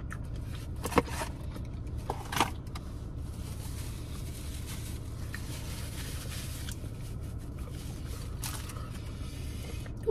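A person quietly chewing fried food and handling its container, with two short crunches or clicks about one and two and a half seconds in, over a steady low hum.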